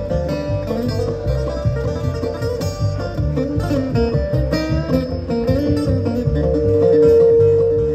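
Live bluegrass band playing an instrumental break, with banjo, mandolin and acoustic guitar picking quick notes over electric bass. A long held note swells near the end.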